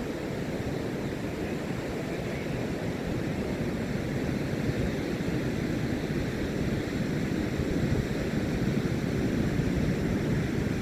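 Ocean surf breaking on a beach: a steady rumbling wash of waves that grows slightly louder in the second half, with wind on the microphone.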